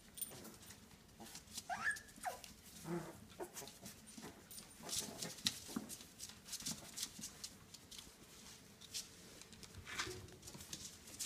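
Five-week-old Coton de Tulear puppies at play: a few short yips and whimpers about two seconds in, then scattered light clicks and scuffles of small paws and toys on the tile floor.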